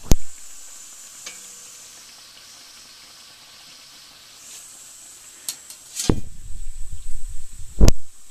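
Khajur dough pieces deep-frying in hot oil in a kadhai: a steady sizzle. A slotted ladle knocks sharply against the pan right at the start, then stirs and scrapes the pan near the end, with another loud knock just before the end.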